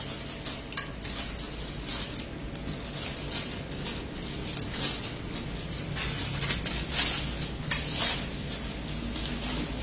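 Plastic wrap crinkling and rustling in irregular spurts as the wrapped crossbar sections of a backdrop stand are handled and pulled from their carrying bag, loudest about seven to eight seconds in.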